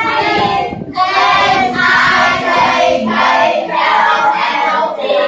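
A group of young female voices singing together, in phrases with a short break about a second in.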